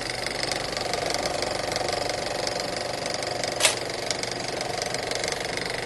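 A steady mechanical rattle like a running motor, with a short sharp hit about three and a half seconds in.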